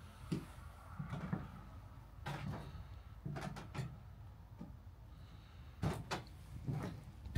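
Irregular soft knocks and thumps of footsteps on wooden terrace decking, over a low steady hum.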